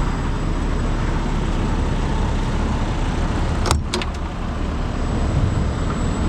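Heavy rotator tow truck's diesel engine running steadily, with two sharp clicks or knocks close together a little before four seconds in.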